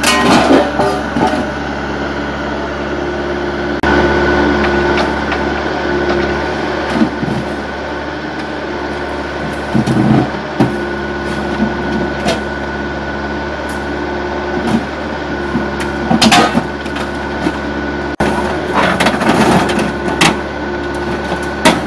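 Excavator running a hydraulic swing shear, its engine and hydraulics giving a steady drone and whine, while the shear's jaws crunch and clank on scrap car metal in bursts: right at the start, about ten seconds in, and again from about sixteen to twenty seconds in.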